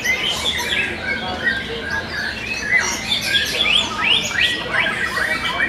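Several caged white-rumped shamas singing at once: a dense, unbroken mix of clear whistled phrases, quick rising and falling notes and rapid chirps.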